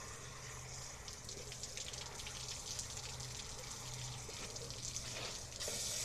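Garden hose with a pointed spray nozzle jetting water in a steady hissing spray, splashing against a coffee maker. It gets louder for a moment near the end.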